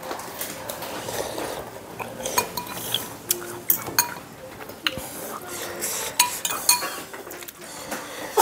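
Metal spoon and fork clinking and scraping against a ceramic bowl while eating noodle soup: a scattered series of short clinks, some with a brief ring.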